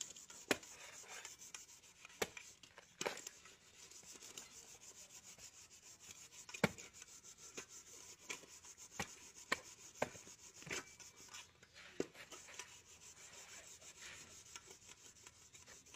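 Machete chopping and shaving the husk of a young green coconut: irregular sharp knocks of the blade every second or so, with scraping and rubbing between them.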